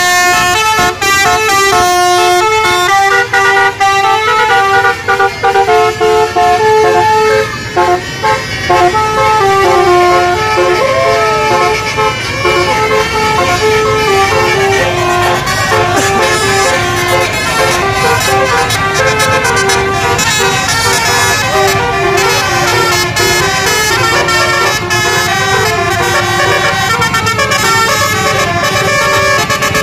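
Basuri musical bus horn playing a tune in steady notes that step up and down in pitch, sounding without pause.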